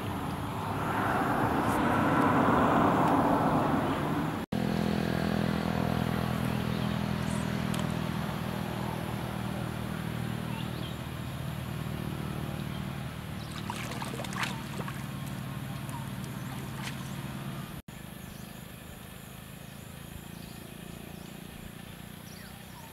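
A steady low motor hum with an even drone that ends abruptly about eighteen seconds in. A few seconds of louder rushing noise come before it.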